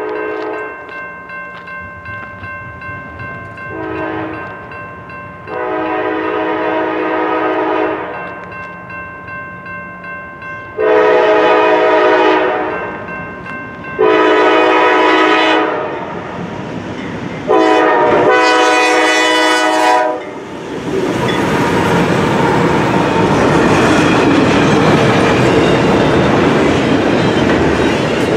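A CSX freight locomotive's multi-chime air horn blows long and short blasts for the grade crossing, ending long, long, short, long, over a ringing crossing bell. About twenty seconds in, the locomotives reach the crossing and the double-stack intermodal train rolls by with steady wheel and rail noise.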